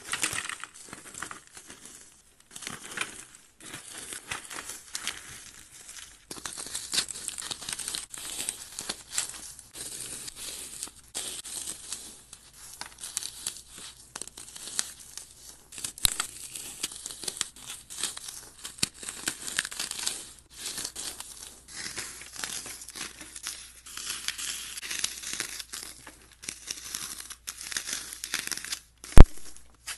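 Paste- and glitter-coated floral foam being crushed and broken apart by hand: dense crunching and crumbling in runs with short pauses. A single sharp click about a second before the end is the loudest sound.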